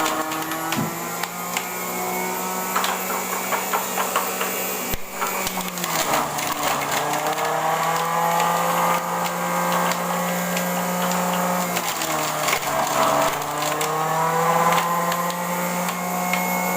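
An electric blender starts up and runs, its motor humming steadily while hard pieces of carrot crack and rattle against the blades. The motor's pitch sags twice under the load, about five and twelve seconds in, and recovers each time.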